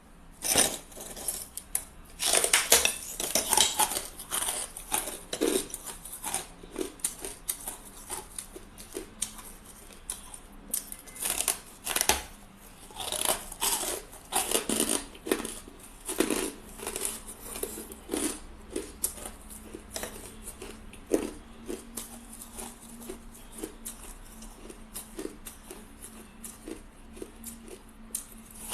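Hard ice being bitten and chewed close to the microphone: a long run of crisp crunches and crackles, with louder clusters of bites a few seconds in and again around the middle.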